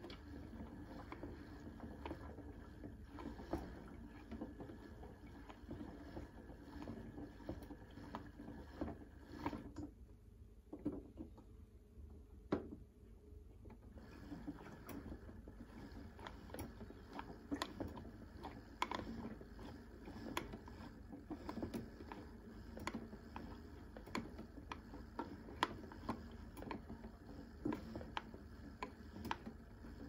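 Vintage Casdon toy washing machine washing: its small drum turns, and clothes and water slosh inside with irregular light clicks and splashes over a low hum. The sloshing thins out for a few seconds about ten seconds in, then picks up again.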